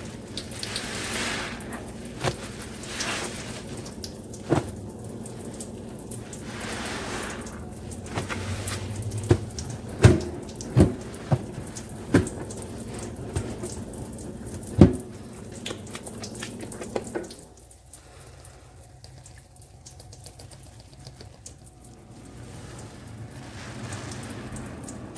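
Soaked, soapy sponge being squeezed by hand, water streaming and dripping out in repeated squeezes, with a handful of sharp squelchy clicks around the middle. The flow drops off about two thirds of the way through, leaving quieter dripping.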